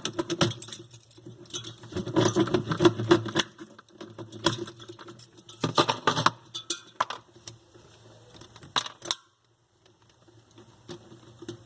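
Small hand tools and metal parts clicking and clinking as a thermostat soldered into a refrigerator's defrost heater wiring is worked loose, in several quick bursts with a short quiet stretch near the end.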